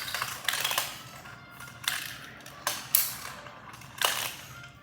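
Marbles rolling and clattering down a Gravitrax plastic marble run: a rattling roll broken by sharp clacks about every second.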